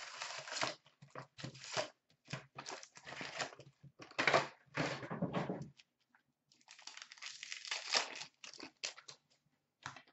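Cardboard trading-card hobby box torn open and its wrapped packs handled, a run of irregular crinkling and rustling as they are pulled out and stacked, with a brief pause about six seconds in.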